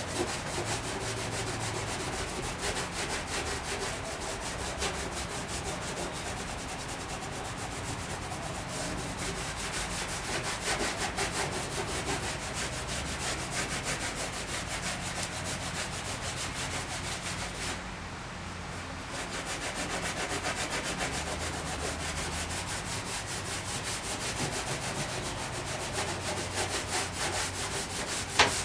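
Rapid back-and-forth hand scrubbing of the painted steel tailgate of a 1959 VW Type 2 single cab with a Brillo steel-wool pad, rubbing away the top coat of paint. The scrubbing pauses briefly about two-thirds of the way through, and a single sharp tap comes near the end.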